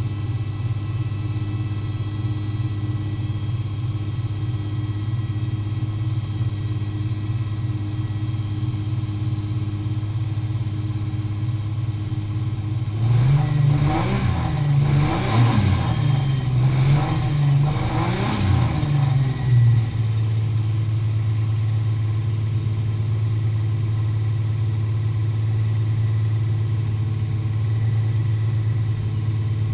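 Single-turbo Toyota 1JZ inline-six in a BMW E36 idling, then revved in a quick series of about four blips, each rising and falling in pitch, before settling back to a steady idle.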